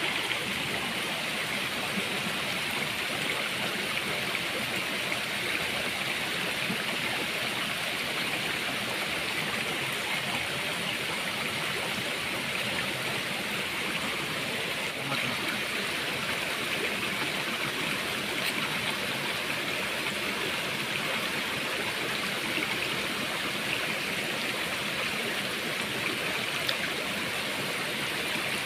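Shallow rocky stream running steadily over stones, an even, unbroken rush of water.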